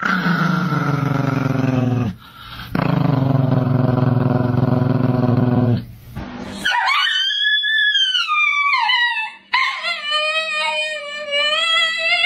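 A man howls like a dog, two long low howls with a short break between them. Then a dog answers with a high-pitched howl that rises and falls, followed near the end by a steadier, held high howl.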